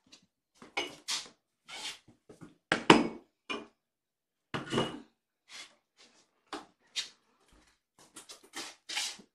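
A string of short knocks and clatters of cat food bowls and a serving tray being handled and set down on the floor, a few of them with a brief ring.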